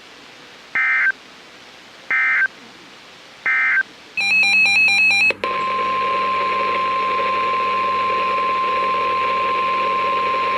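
NOAA Weather Radio SAME digital data bursts: three short identical bursts of screeching data tones about a second apart, the end-of-message code for the warning just read. They are followed about four seconds in by a short burst of warbling data tones. From about five and a half seconds in comes the steady single-pitched 1050 Hz weather radio warning alarm tone that precedes a new alert.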